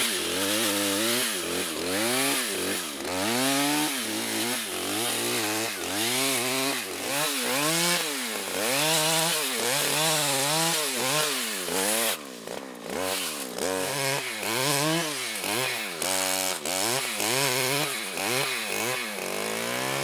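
Backpack brush cutter's two-stroke engine running, revving up and dropping back over and over, about once a second, as the cutting head clears saplings and brush.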